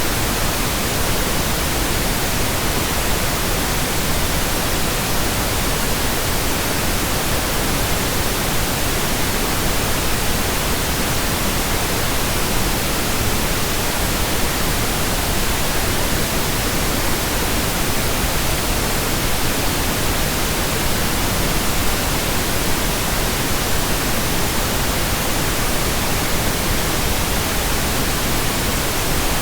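Steady pink noise: a continuous, even hiss spread across the whole range from deep to high, unchanging throughout.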